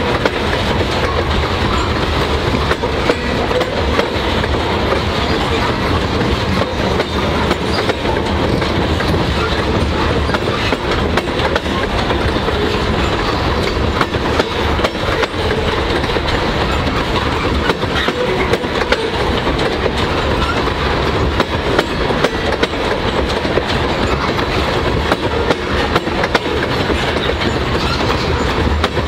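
Loaded covered hopper cars of a grain train rolling past close by: a steady rumble of steel wheels on rail, with frequent clicks as the wheels cross rail joints.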